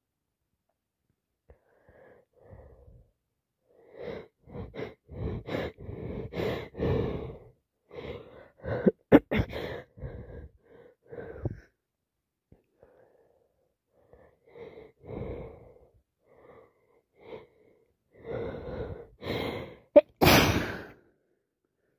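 A woman with a head cold sniffing and drawing quick, gasping breaths in short runs, with a sharp sneeze about nine seconds in and a full, loud sneeze near the end.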